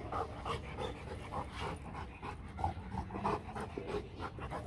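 Dog panting steadily, about three breaths a second.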